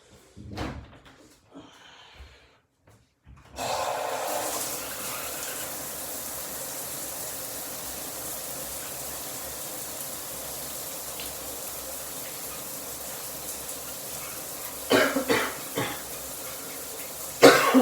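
Shower water comes on about three and a half seconds in and runs steadily. Near the end a person lets out a few short loud bursts, then a sudden sneeze.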